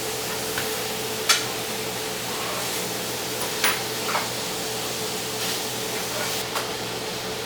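A few short, light clicks of a Torx screwdriver and tiny screws and springs being handled, the sharpest about a second in, over a steady hiss with a faint steady hum.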